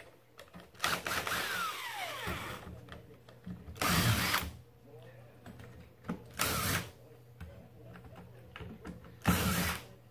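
Cordless drill-driver backing screws out of a wooden chair, run in four short bursts. The first burst is the longest, and its motor whine falls in pitch.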